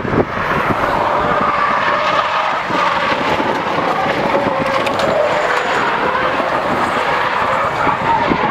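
A car's tyres screeching in a long, continuous skid as a sedan drifts sideways on asphalt. The squeal wavers in pitch but stays steady in loudness.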